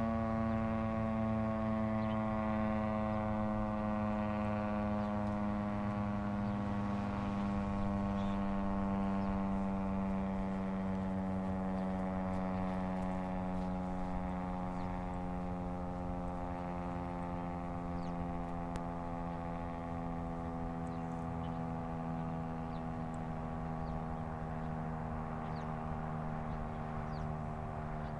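Federal Signal STH-10 electromechanical warning siren winding down after its alert signal: a single steady tone slowly sliding lower in pitch and fading a little.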